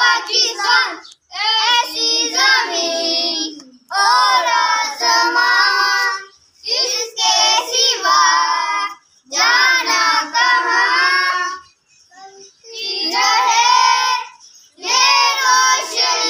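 Children singing a Pakistani patriotic song together, in short sung phrases with brief pauses between them.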